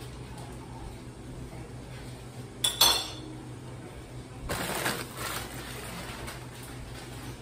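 Metal cookware clanking: two quick sharp knocks with a brief ring about three seconds in, then a short rustling scrape about two seconds later, over a steady low hum.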